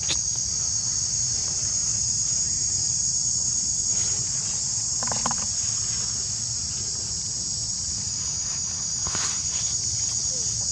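Steady, high-pitched chorus of insects, unbroken throughout, with a couple of brief faint sounds about five and nine seconds in.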